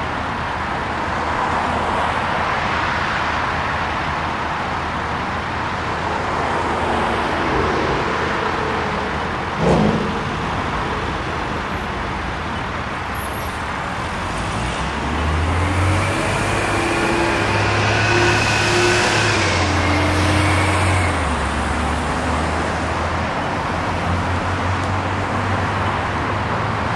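City traffic: cars passing close by through an intersection, tyre and engine noise throughout. A short sharp knock sounds about ten seconds in. From about fifteen to twenty-one seconds one passing vehicle's engine sets up a louder low drone with a whine over it.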